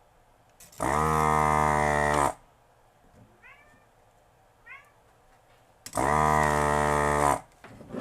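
Vacuum desoldering tool's pump running in two steady buzzing bursts of about a second and a half each, sucking molten solder from an inductor's pads on a circuit board. Two faint short chirps come in the gap between the bursts.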